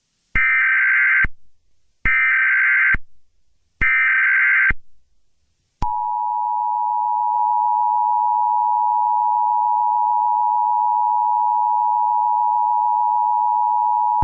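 Emergency Alert System tones opening an alert. Three bursts of SAME header data, each a harsh, modem-like squawk about a second long, come at even spacing. Then the two-tone EAS attention signal starts, a steady harsh tone held for about eight seconds.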